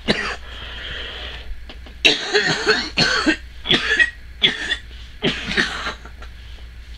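A woman's coughing fit: about six coughs in quick succession through the middle, after she has got strangled.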